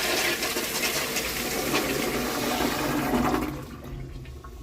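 Commercial toilet with a flushometer valve flushing on a freshly fitted 3.5-gallon diaphragm: water rushes through the bowl, then the flow tapers off about three and a half seconds in as the valve closes, the sign that it now shuts off instead of running on.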